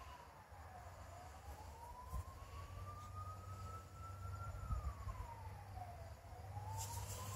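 A siren wailing, its single tone falling, rising slowly over about three and a half seconds, then falling again near the end.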